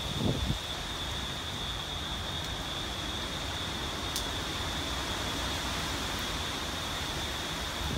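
Hurricane-force wind and rain in trees: a steady rushing hiss with a low rumble of wind buffeting the microphone, a brief stronger gust about half a second in. A steady high-pitched tone sits under it.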